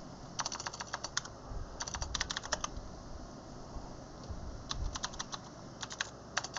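Computer keyboard being typed on in quick bursts of keystrokes, with a pause of about two seconds in the middle.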